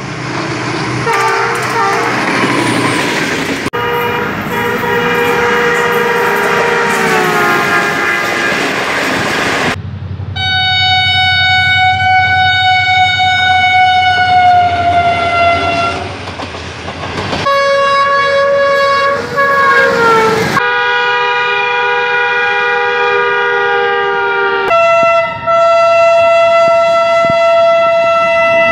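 Diesel locomotive air horns, a series of long blasts from different locomotives one after another, each a steady multi-note chord that changes abruptly to the next. Twice the chord slides down in pitch as a locomotive passes, over the rumble and clatter of a train running by.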